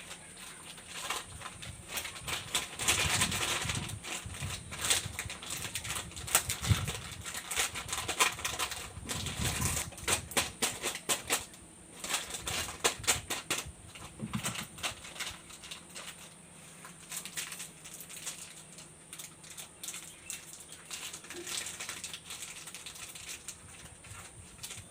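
Crinkling and crackling of candy and chocolate wrappers being handled and unwrapped, in quick runs of sharp clicks that are busiest in the first half and thin out later.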